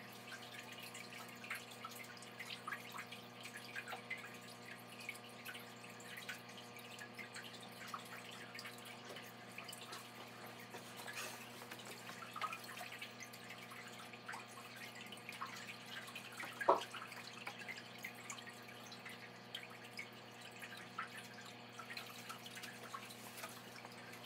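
Faint drips and small splashes of aquarium water as a net is worked in the tank, over a steady low hum. There is one louder knock about two-thirds of the way through.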